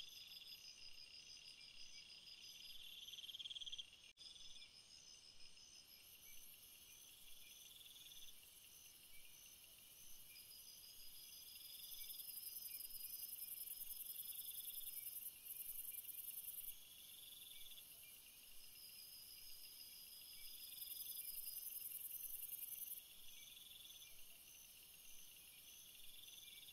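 Faint high-pitched insect chirping: several overlapping, evenly pulsed trills at different pitches, starting and stopping in turn.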